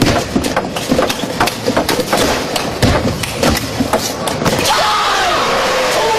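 Table tennis rally: the celluloid ball clicks sharply off the bats and the table in quick alternation for about four and a half seconds. Then crowd applause swells as the point ends.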